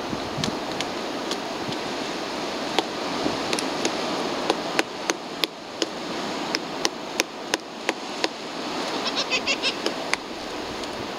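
Magellanic woodpecker pecking into a tree trunk: sharp single knocks at uneven intervals, a few per second at times, with a quicker run of light taps near the end, over a steady background hiss.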